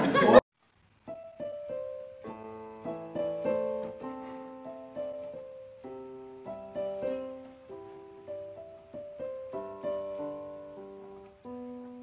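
Background piano music: a gentle melody of struck notes and chords, each ringing and fading, starting about a second in after a voice is cut off abruptly.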